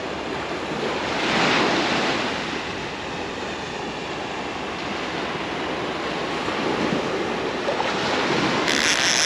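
Surf washing onto the beach, a steady rush that swells about a second in and again near the end, with wind on the microphone.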